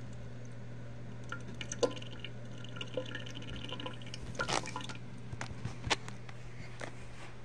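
Water from a bathroom faucet trickling into the sink and over a hand, with scattered drips and splashes, the loudest about two seconds in and again near six seconds. A steady low hum runs underneath.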